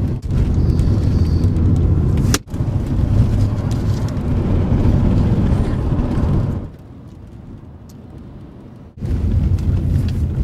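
Road and engine noise inside a moving car's cabin, loud and steady. It breaks off sharply twice, drops much quieter for about two seconds after the middle, then comes back.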